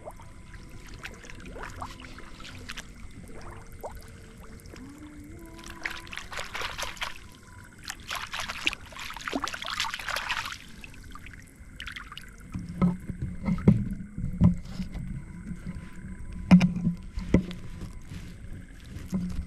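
Water splashing in two bursts, followed by a run of low knocks and thuds.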